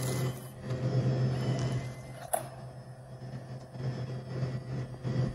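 Bill acceptor of a Crane / Automatic Products vending machine drawing in a dollar bill: a short motor whir in the first second or so, then a single click about two seconds in, over a steady low hum.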